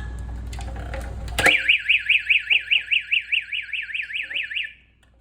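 Electronic fire alarm sounder switching on with a click about a second and a half in, then sounding a loud, fast up-and-down sweeping tone, about five sweeps a second, for about three seconds before cutting off. A steady low hum stops as the alarm starts.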